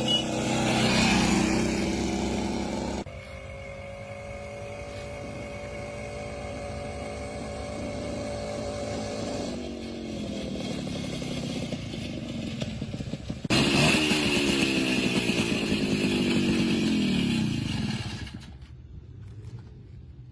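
Minsk 125 two-stroke single-cylinder motorcycle engine running, heard in several short clips that change abruptly. Near the end it gets louder, then its pitch falls away as the engine slows.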